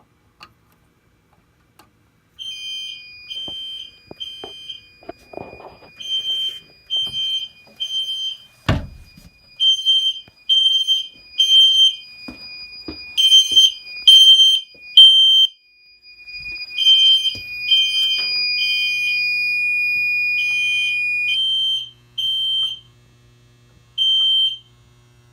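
System Sensor i3 smoke detector sounding in alarm: high-pitched beeps in the temporal-3 pattern, three beeps then a pause, repeating. A steady high tone sounds along with them and cuts off about 21 seconds in. There is a single loud thump about 9 seconds in.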